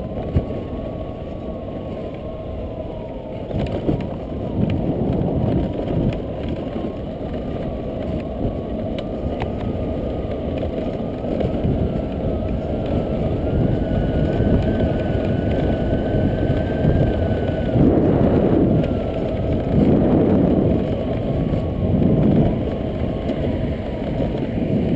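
Automatic scooter riding along, its engine whine rising and falling in pitch with speed, over a steady rush of wind and road noise that swells louder a few times near the end.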